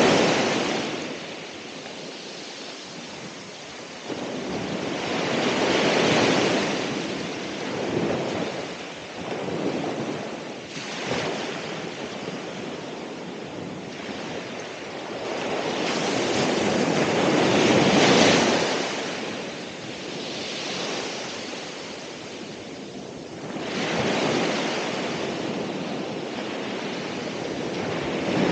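Ocean waves breaking and washing ashore, a surge of surf every four to six seconds with a softer hiss of water between, the biggest wave breaking about two-thirds of the way through.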